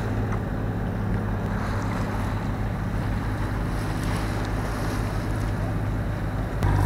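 Sailboat's inboard engine running at a steady pace while motoring, with water rushing along the hull and wind buffeting the microphone. Near the end the engine hum abruptly gets louder.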